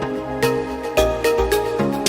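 Background music with a steady beat: electronic instrumental with plucked melody notes and a thumping bass.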